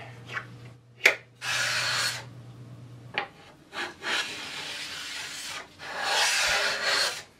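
Carbide edge hand plane being pushed along the edge of a poplar board: three scraping cutting strokes, the middle one the longest, with a sharp click about a second in.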